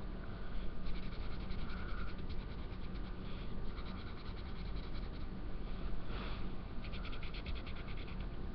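Black marker scratching on paper in runs of quick back-and-forth strokes as stripes are coloured in.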